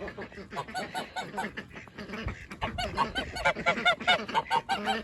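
A flock of domestic geese honking, many short calls in quick succession that grow louder and busier about halfway through.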